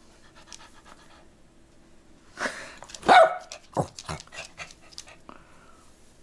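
Poodle panting close to the microphone in quick breaths, with a few louder huffs and one short, loud bark about three seconds in.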